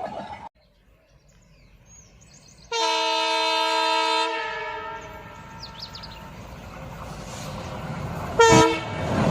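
Indian Railways train horn: one long blast of about a second and a half about three seconds in, then a short toot near the end, over the rumble of a train running.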